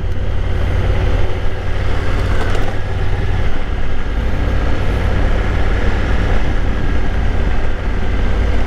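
Honda Africa Twin's parallel-twin engine running steadily at low speed in a low gear on a dirt road, a continuous low rumble with road noise over it.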